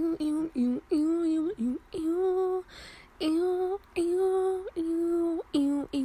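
A woman singing a string of short held notes on wordless syllables, each note sliding in pitch at its start and end. There is a short hiss near the middle.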